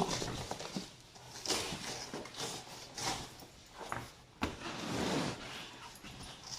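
Irregular scraping, rustling and knocking of objects being handled and moved, with a sharp knock about four and a half seconds in.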